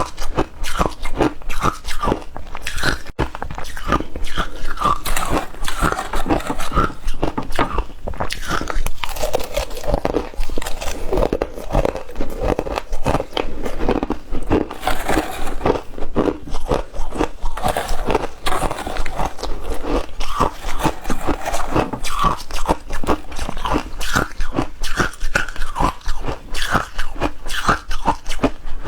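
Frozen ice being bitten and chewed close to the microphone: a rapid, unbroken run of sharp crunches, several a second.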